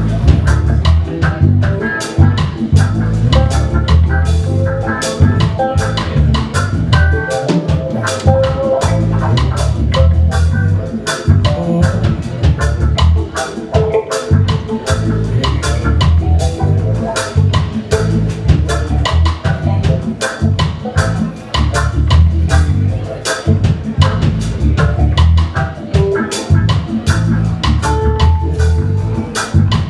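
Live roots reggae band playing: a steady drum-kit beat under a heavy bass line, with electric guitars, keyboard and a singer on the microphone.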